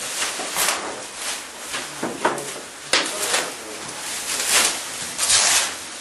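Plastic bin-liner bags rustling and being handled in a series of irregular rustles, with a couple of sharp clicks, one about three seconds in.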